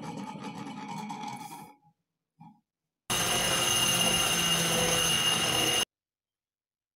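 A flat hand file rasping across a steel part in quick repeated strokes, stopping about two seconds in. About a second later a bench grinder's stone wheel grinds a small steel hex nut, throwing sparks: a loud steady hiss with a high whine that cuts off suddenly near the end.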